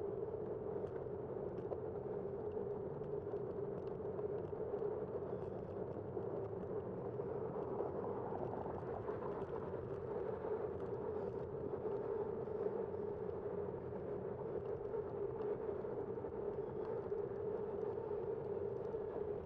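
Steady riding noise of a bicycle rolling along a concrete street, picked up by a bike-mounted camera: an even rushing hum with faint scattered ticks above it.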